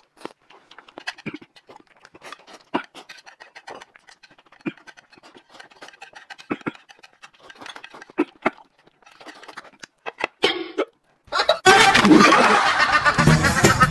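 Eating sounds: chewing and slurping with scattered light clicks of chopsticks and a plate against the table. About eleven seconds in, a much louder, dense sound effect cuts in abruptly.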